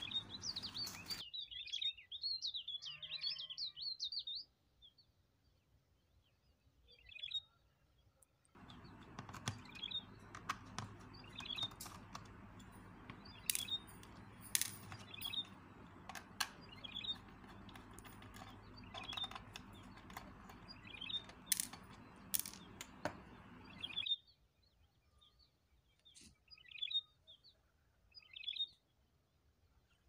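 Small birds chirping in short calls every second or two, with a busier burst of song in the first few seconds. From about eight seconds in until about twenty-four seconds in, a steady low hum runs underneath, broken by a few sharp clicks from a small screwdriver working the screws of a plastic multimeter case.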